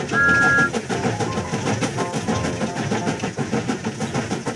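Train sound effect: rapid clickety-clack chugging, with a short two-tone whistle blast right at the start.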